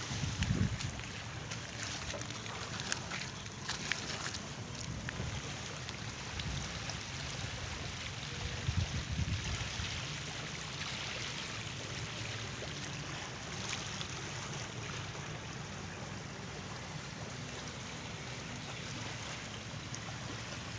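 Small waves lapping and washing over a pebble shore, a steady wash of water noise, with low gusts of wind on the microphone near the start and again about nine seconds in.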